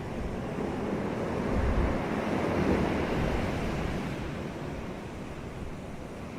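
Waves breaking on a beach: a steady surf wash that swells about midway and then eases off, with low wind rumble on the microphone.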